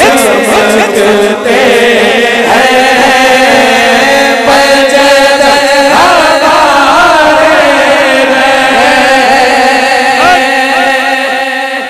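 Men's voices chanting a devotional naat through a microphone and PA, in long held notes that waver and bend, over a steady sustained lower vocal line. The sound fades a little near the end.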